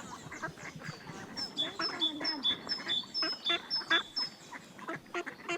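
Ducks calling on a lake. Through the middle a small songbird repeats a two-note whistled phrase, a high note then a lower one, about seven times at roughly two or three phrases a second.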